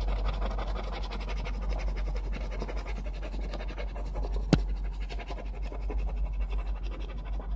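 Scratch-off lottery ticket being scratched, with rapid back-and-forth scraping strokes on the coated card. There is one sharp click about halfway through.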